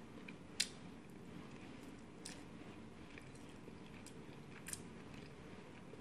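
A person chewing a mouthful of chicken with the mouth closed, with a few sharp clicks, the loudest about half a second in, over a steady low hum.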